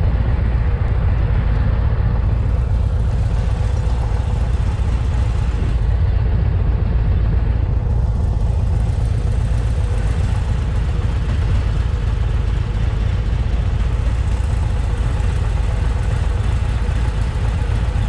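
2020 Indian Challenger's liquid-cooled V-twin engine idling steadily with a deep rumble.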